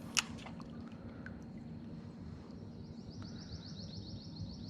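A sharp click just after the start, then a songbird's trill: a rapid, even run of high notes lasting about two seconds in the second half.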